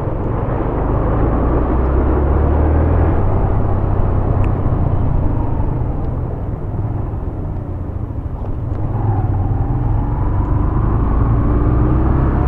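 Yamaha YBR 125G motorcycle's single-cylinder four-stroke engine running on the move, under heavy wind rumble on the helmet microphone. The engine pitch dips around the middle and climbs steadily over the last few seconds as the bike accelerates.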